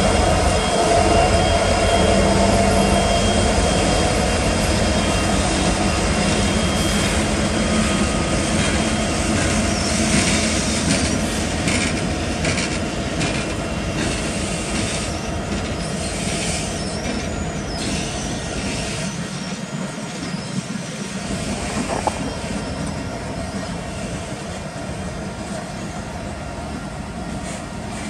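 A string of EMD and GE diesel-electric freight locomotives passes close by with their engines running, followed by rail cars rolling on the track. High-pitched wheel squeal comes on and off from about ten seconds in, and the sound fades gradually as the locomotives move away.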